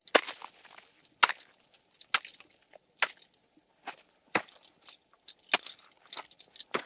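A run of sharp knocks or chops, about one a second, with crackling and crunching between them, beginning abruptly out of silence.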